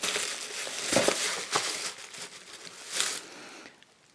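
Bubble wrap and plastic packing crinkling as a hand rummages in a cardboard box and pulls an item out, louder about one second and three seconds in, then stopping shortly before the end.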